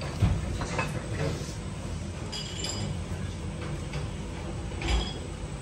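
Ceramic tableware clinking a few times over a steady low hum, with one clear ringing clink about two and a half seconds in and a dull knock near the end.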